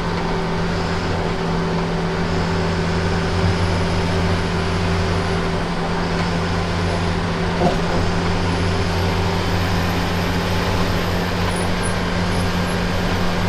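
Bus engine running steadily under road noise, a constant low hum with one brief knock a little past halfway.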